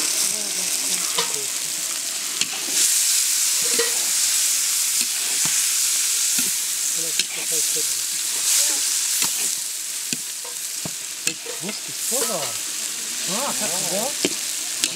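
Julienned carrots and meat frying in hot oil in a large cast-iron kazan, the stage of cooking plov where the carrots go in. The steady sizzle is broken by clicks and scrapes of a metal skimmer stirring against the pot.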